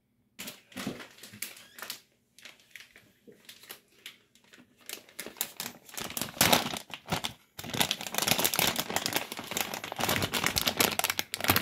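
Packaging crinkling and rustling as it is torn open and handled to get out a stack of thin clear plastic cups: scattered crackles at first, becoming dense and louder about halfway through.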